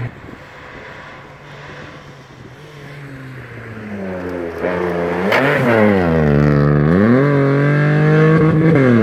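A race car's engine approaches with rising revs. Its pitch drops sharply as it slows for a hairpin, then climbs again and holds high and loud as it accelerates away uphill.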